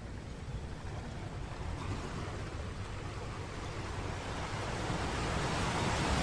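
Sea waves washing onto a sandy beach, with wind rumbling on the microphone. The surf hiss swells toward the end as a wave comes in.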